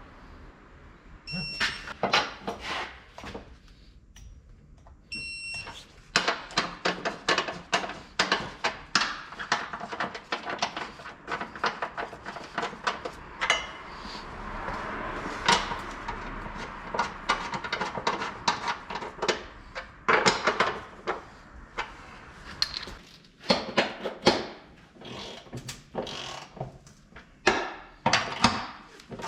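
Hand-tool work on a car's underside: rapid irregular clicks and knocks of metal tools and parts, with a short high electronic beep twice in the first few seconds.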